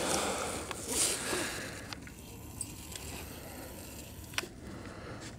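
Handling noise as an H4 LED headlight bulb and its wiring are worked into the back of a car headlight: rustling for the first second or so, then a few light clicks.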